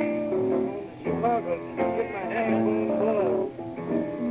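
Jazz trio of guitar, double bass and piano playing, with the guitar's line of notes to the fore, in a 1954 live recording.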